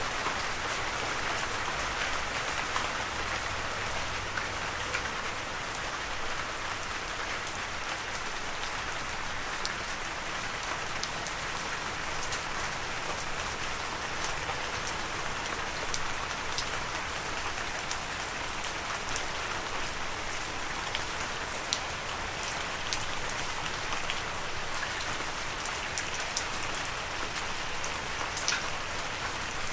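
Steady rain falling, an even hiss with many individual drops heard as short, sharp ticks scattered throughout.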